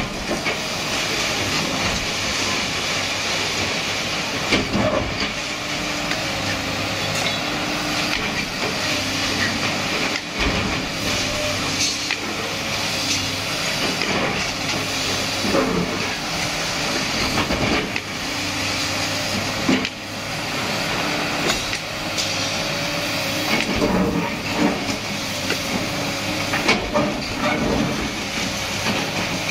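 Sany SY215C crawler excavator working at full power demolishing a reinforced-concrete building: its diesel engine runs steadily under load with a faint whine, while the bucket breaks concrete, with repeated crunches, knocks and falling rubble.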